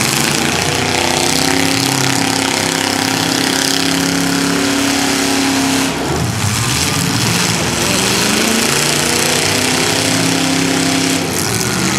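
Several demolition derby cars' engines running loud and revving, each pitch held for a second or two, with a brief dip about halfway through and near the end.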